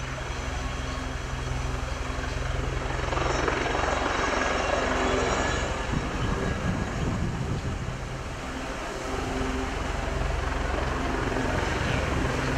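Royal Navy Westland Lynx helicopter hovering low and turning on the spot, its twin turboshaft engines and rotors running. The noise grows louder about three seconds in, eases briefly around eight seconds, then swells again as the helicopter turns.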